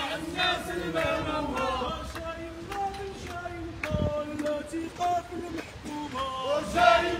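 A crowd of protesters chanting slogans together, the voices growing louder near the end, with a single sharp knock about four seconds in.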